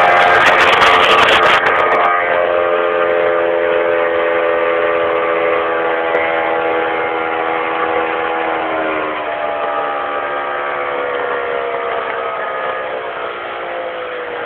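Boat motor running under way, a steady pitched hum that sinks slowly in pitch from about eight seconds in and gradually gets quieter. It follows a louder rush of noise that cuts off about two seconds in.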